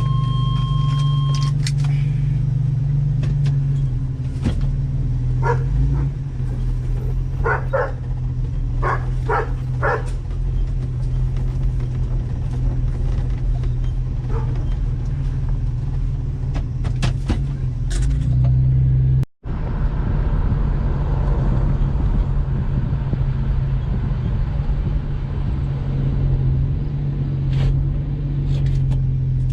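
1985 Chevy S-10 pickup being driven, its engine and road noise a steady low drone inside the cab. A steady warning tone sounds for the first second or so, and a few short sharp sounds come between about six and ten seconds in.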